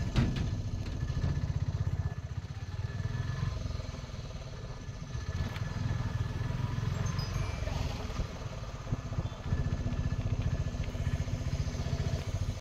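Auto-rickshaw engine running as the rickshaw drives along, heard on board: a steady, low, rapid throb.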